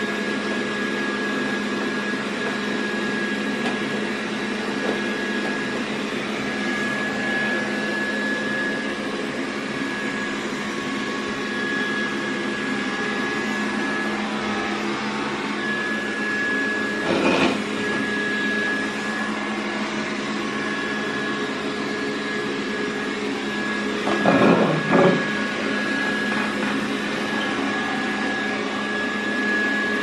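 Xiaomi S10+ robot vacuum running steadily: an even fan and motor hum with a thin high whine. A brief louder sound comes about halfway through, and another about three-quarters of the way in.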